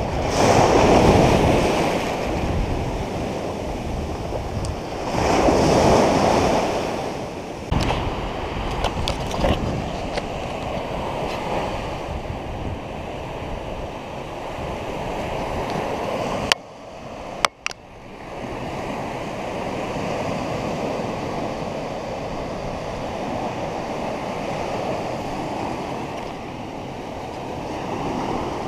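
Surf washing up on a sandy beach, with two louder swells of breaking waves, about a second in and again around six seconds. The sound cuts out briefly a little past halfway.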